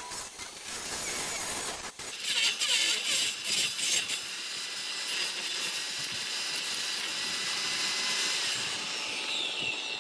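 A power tool working wood, giving a steady, high, gritty sound; the sound changes abruptly about two seconds in and then runs evenly.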